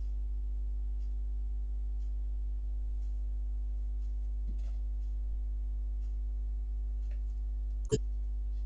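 Steady low electrical hum with a buzz of evenly spaced overtones from the recording setup, with a few faint ticks and one sharp click about eight seconds in.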